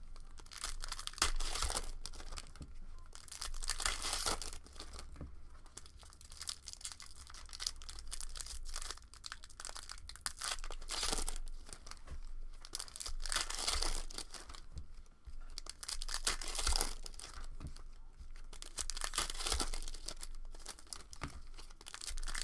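Foil wrappers of Upper Deck hockey card packs being torn open and crinkled by hand, with the cards inside handled and flicked through: irregular crackling rustles that come and go every second or so.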